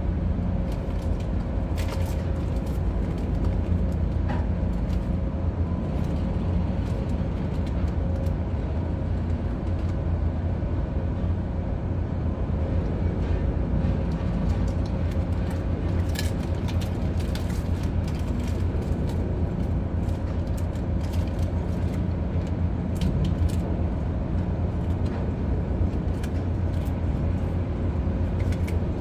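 Steady low hum of a ship's onboard machinery running, with a few faint clicks and ticks scattered through it.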